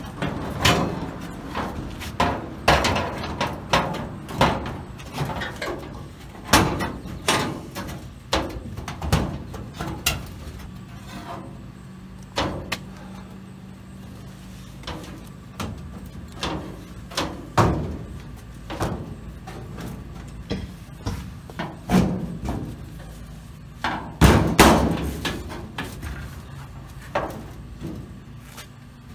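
Repeated irregular metal clunks and knocks from the steel door of a 1936 Chevrolet coupe being worked into its opening and pushed shut on a trial fit. The loudest bangs come near the end, over a low steady hum.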